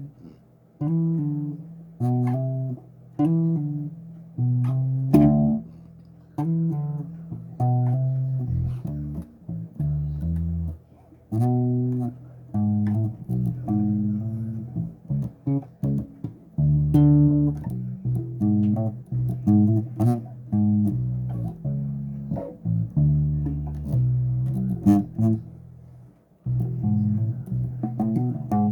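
Bass guitar played solo: a steady run of plucked notes, each one ringing out and fading before the next.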